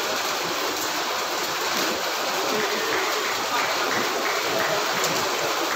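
Steady, even hiss of rain drumming on a metal roof.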